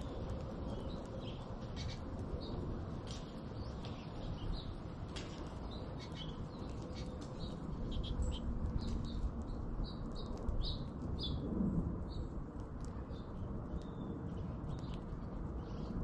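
American goldfinches chirping at a thistle feeder: many short, high call notes scattered through, over a steady low background rumble.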